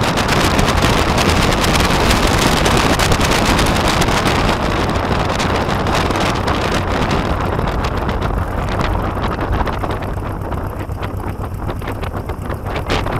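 Aeronca Chief light taildragger taxiing on a grass field: wind buffets the fuselage-mounted microphone over the steady low drone of its engine, with quick rattles and knocks from the airframe rolling over rough ground. The hiss eases about eight seconds in.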